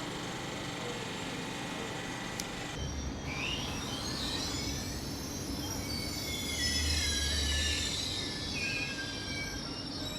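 Train at a station platform, its wheels squealing on the rails. About three seconds in, several high screeching tones begin, gliding up and down over a low rumble.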